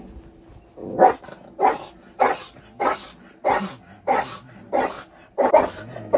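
Pet dog barking in a steady run of about nine evenly spaced barks, roughly one and a half a second, starting about a second in: it is barking at wolves on the television.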